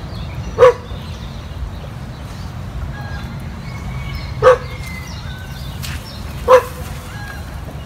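A dog barking: three short, loud single barks, about a second in, then two more about two seconds apart near the end, over a steady low rumble.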